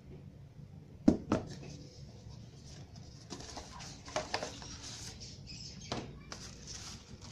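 Cardboard phone packaging being handled: a couple of sharp knocks about a second in as the phone is set down, then scraping and rustling of the white cardboard insert being lifted out of the box, with a few light taps.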